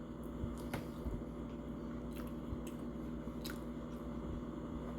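Faint wet chewing and mouth clicks, a few soft clicks scattered through, over a steady low electrical hum.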